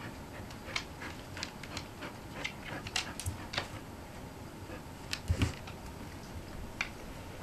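A large dog's claws clicking on a wooden floor as it paces restlessly, with a couple of heavier thumps about five seconds in.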